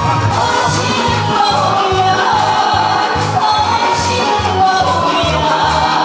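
A woman singing into a microphone through a PA system over accompaniment music with a steady bass beat of about two pulses a second.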